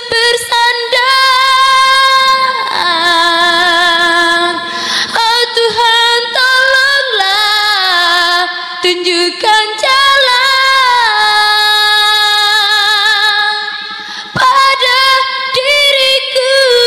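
A woman singing unaccompanied into a handheld microphone: long held notes with vibrato, sliding between pitches, with a few short breaks.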